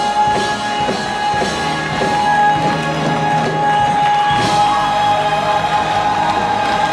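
Live concert music with a long note held steady.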